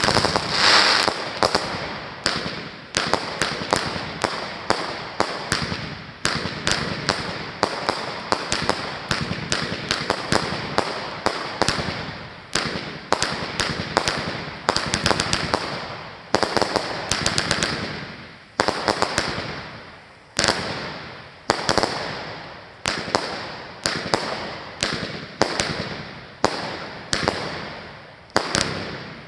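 A fireworks barrage firing shot after shot: sharp bangs every second or two, each trailing off, over a continuous rapid crackle of smaller reports.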